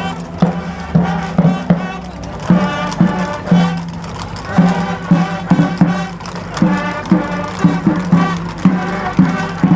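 Loud music with a steady beat of about two low pulses a second under a melody.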